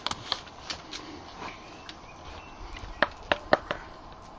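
Sharp clicks and taps from a wooden Cajun button accordion being handled, a few at the start and a quick run of four near the end.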